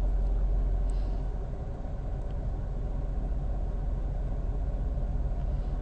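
Hydraulic excavator's diesel engine running steadily with a low rumble while the machine drives forward on its tracks.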